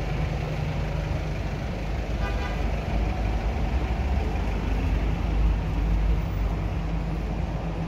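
Steady low rumble of city road traffic, with buses and cars running close by. A brief faint higher tone comes a little over two seconds in.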